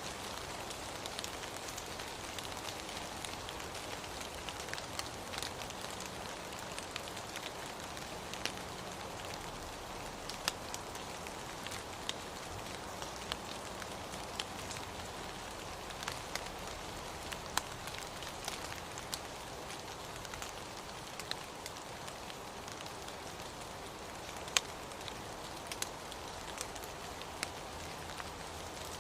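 Steady rain, an even wash of noise with scattered sharp ticks of single drops striking.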